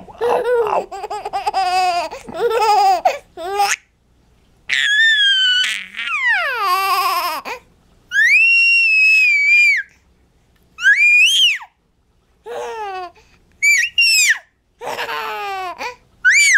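Baby laughing in choppy bursts, then letting out long, high-pitched squeals that rise and fall, with short pauses between.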